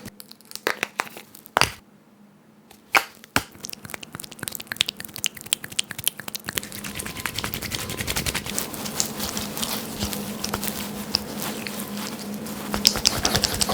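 Dollar Shave Club cartridge razor shaving stubble: a dense run of tiny crackling clicks as the blades cut through the hairs. It begins after a few separate clicks and grows louder toward the end.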